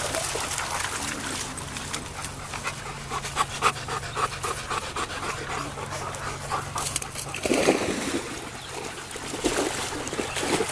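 A dog panting quickly and rhythmically, with a louder burst of sound about seven and a half seconds in.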